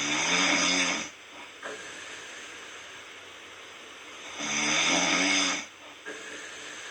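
A person snoring in sleep: two loud snores about four and a half seconds apart, each lasting about a second. A faint steady hiss runs underneath.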